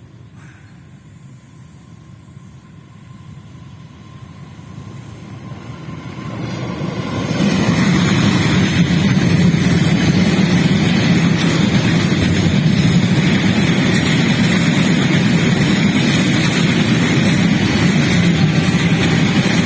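Freight train of oil tank wagons passing: faint at first, growing louder over the first seven seconds or so, then a loud steady noise of the train running past close by.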